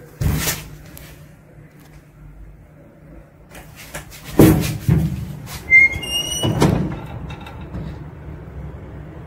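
Lift car: heavy knocks and thuds of the lift doors and car, and a short electronic beep about six seconds in as a floor button is pressed, over a steady low hum.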